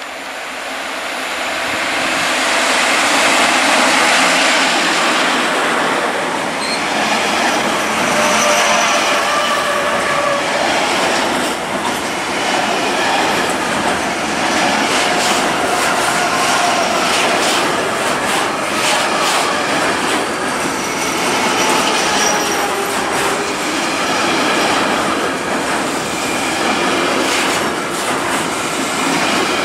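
EU07 electric locomotive hauling an intermodal container train approaches and passes, getting louder over the first few seconds. Then the container wagons roll by with a steady rumble of wheels on rail, repeated clattering clicks and a few brief thin squeals.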